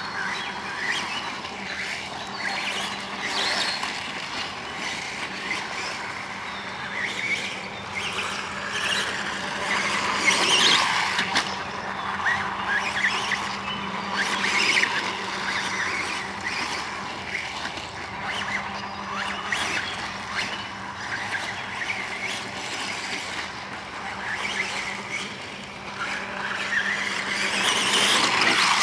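Radio-controlled model dirt bike's motor whining, its pitch rising and falling as the throttle changes. It grows louder near the end as a radio-controlled quad runs close by.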